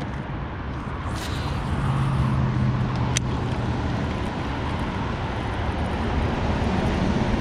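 Bow-mounted electric trolling motor running with a steady low hum over a haze of outdoor noise. A single sharp click about three seconds in.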